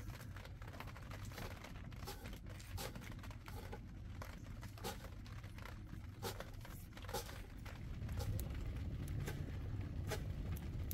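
Knife chopping fresh green leeks on a cardboard sheet: irregular crisp cuts and clicks of the blade through the stalks. A steady low rumble runs underneath and grows louder near the end.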